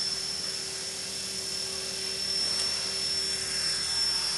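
Blade 400 electric RC helicopter hovering: a steady high whine from its motor and gears over the hum of the spinning rotor.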